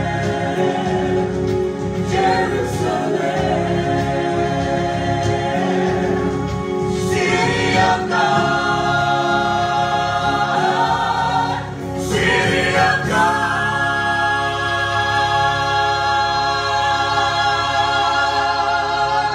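Gospel group of men's and women's voices singing in harmony through microphones, closing the song on one long held chord in the last several seconds.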